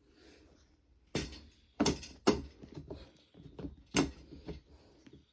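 Boots being handled: a string of sharp, irregular knocks and clicks, four of them louder than the rest.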